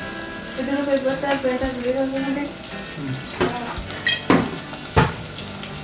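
A held pitched tone for about two seconds, then several sharp clinks and knocks of bottles and cups being handled on a kitchen counter.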